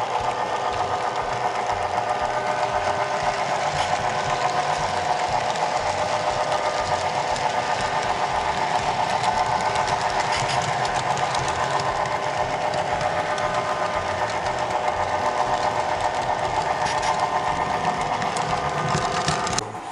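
HO-scale model diesel locomotive and train running on track, heard up close from a camera car coupled to it: a steady whirring drone of the motor and wheels on the rails, with fine rapid ticking. The sound drops off suddenly near the end.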